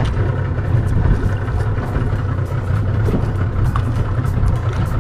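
Boat's outboard engines running at a steady idle, a constant low hum, with a few light clicks from handling as a small fish is unhooked.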